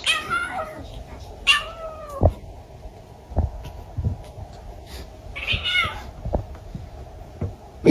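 A cat meowing three times, each call falling in pitch, with a few dull thumps in between.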